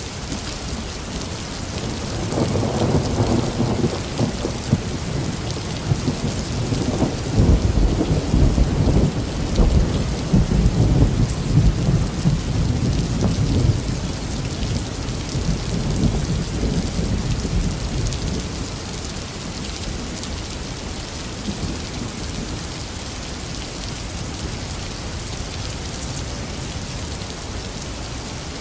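Heavy rain falling steadily, with a long roll of thunder that builds a couple of seconds in, is loudest around the middle and rumbles away a little past halfway.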